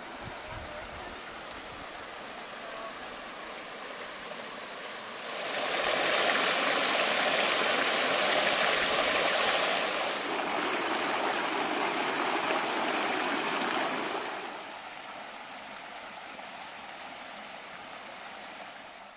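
Shallow mountain creek flowing over rocks, a steady rush of water. It swells to a much louder rush about five seconds in and falls back to a softer flow about fifteen seconds in.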